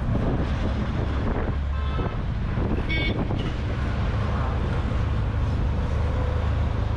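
Auto rickshaw's small engine running steadily under way, heard from the open passenger seat amid road and traffic noise. Short vehicle horn toots sound twice, about two and three seconds in.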